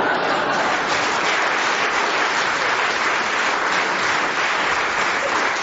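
Audience applauding a comedian's punchline, a steady, dense wash of clapping.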